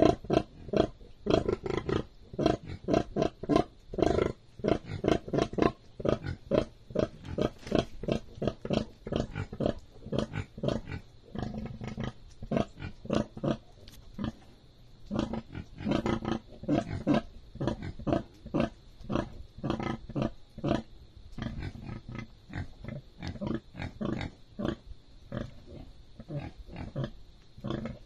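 Sow grunting in a steady rhythm of short, low grunts, about two to three a second, while her newborn piglets suckle: the nursing grunts of a sow letting down milk. The grunts are louder in the first few seconds and softer after that.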